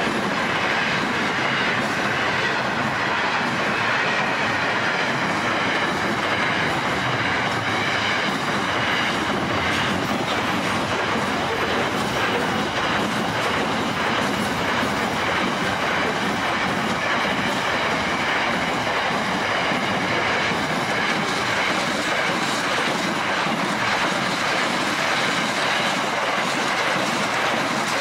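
Long freight train of loaded container wagons rolling steadily past, its steel wheels rumbling and clattering on the rails.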